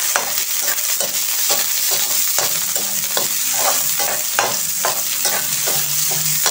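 Garlic and onion sizzling in hot oil in a metal wok while a metal spatula stirs and scrapes them, many short scraping strokes over a steady sizzle.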